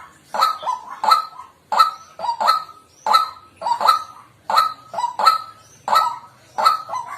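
White-breasted waterhen calling: loud double-noted croaking calls repeated in a steady rhythm, about three calls every two seconds.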